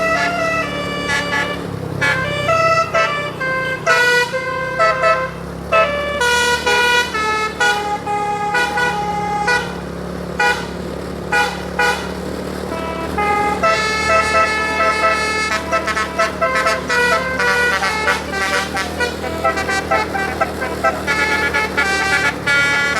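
An Indonesian bus telolet horn, a multi-tone musical air horn, plays a quick tune of short stepped notes, changing pitch several times a second. A steady low engine drone runs underneath.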